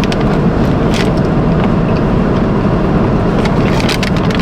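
Steady rumble of a moving car, road and engine noise heard from inside the vehicle.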